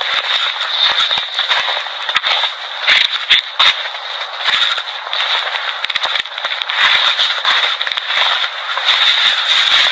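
Thin, harsh crackling static with a steady hiss and many scattered sharp clicks, with nothing in the bass.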